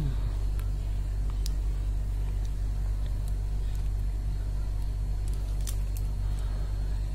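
A steady low electrical-sounding hum with a few faint clicks and taps: a plastic action figure being handled and turned over by hand.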